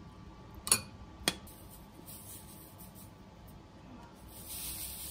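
A metal spoon clinks twice against a glass mixing bowl, about half a second apart. Near the end comes a soft hiss as the spoon is scooped into a bag of sugar.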